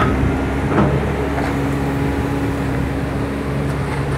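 Heavy diesel engine of a tracked excavator running steadily with an even drone, and a single light knock about a second in.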